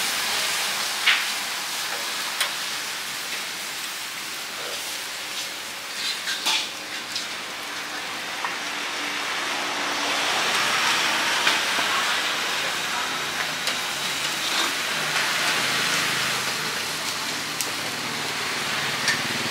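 Meat skewers sizzling over a charcoal grill: a steady hiss that grows louder about halfway through, with a few light metal clinks.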